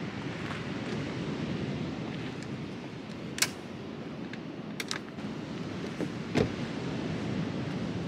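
SsangYong G4 Rexton rear door being handled and shut: a few sharp clicks and a heavier thump about six seconds in, over steady wind noise.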